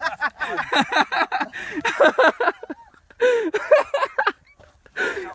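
Several people laughing hard in rapid bursts, with a brief pause about three seconds in.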